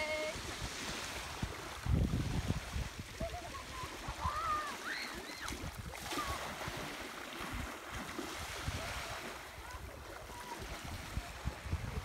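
Small waves washing onto a sandy shore, with wind buffeting the microphone in low rumbles. Faint distant voices come through a few seconds in and again near the end.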